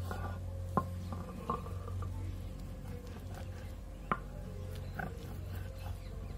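Stone muller (batta) rubbed back and forth over a flat grinding stone (sil) to grind red chilli paste, a rough, uneven scraping with a few sharp clicks of stone on stone, the loudest about four seconds in. A steady low hum runs underneath.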